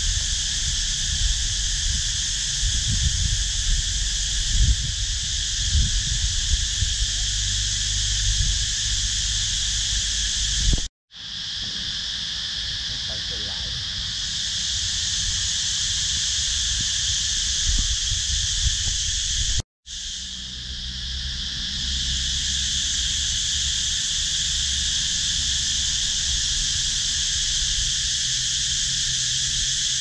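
Cicadas singing in the trees: a continuous shrill, even buzz. It cuts out abruptly twice, about eleven seconds in and near twenty seconds in, and a low rumble sits under it for the first ten seconds.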